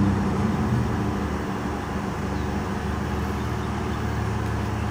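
A motor vehicle engine running steadily at idle, a low even hum.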